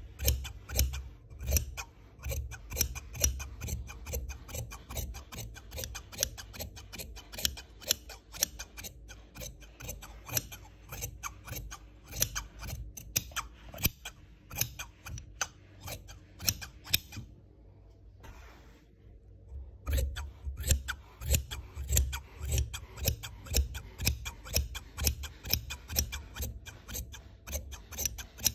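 Fabric scissors cutting through cloth, the blades closing in a quick run of crisp snips several times a second. The snipping pauses for about two seconds two-thirds of the way through, then starts again.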